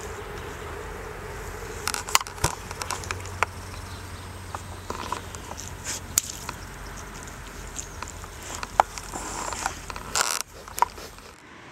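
Rough collie puppy nosing and mouthing rubber water balloons: scattered sharp clicks and taps over a steady background hiss.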